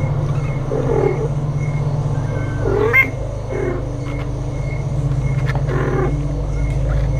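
Kittens giving a few short meows, the loudest about three seconds in, over a steady low hum.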